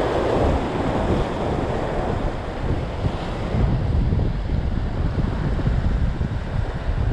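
Ocean surf breaking and washing over rocks, loudest in the first couple of seconds, with wind buffeting the microphone in a low rumble.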